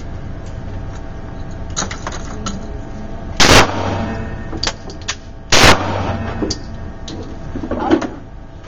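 Two pistol shots from a .40-calibre Glock 23, a little over two seconds apart, each a sharp, very loud crack.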